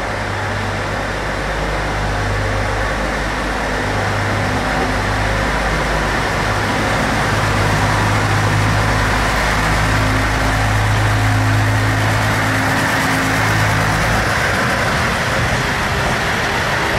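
Electric train running, a steady rumble with a low hum that comes and goes, growing slightly louder.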